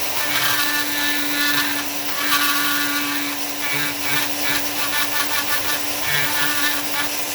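Dremel rotary tool running at a steady speed, its bit grinding into wood; the grinding noise swells and fades as the bit bites in and eases off, over an even motor whine.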